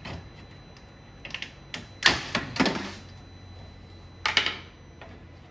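Plastic cracking and snapping as pliers cut through the linkage arm of a BMW active grille shutter: a few sharp clicks and crunches, the loudest about two seconds in and another near the end.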